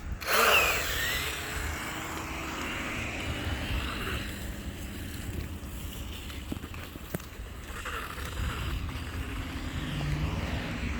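Electric RC car motor whining as the car speeds up and slows, loudest just after the start with a rising and falling pitch, then running on more quietly with further short surges.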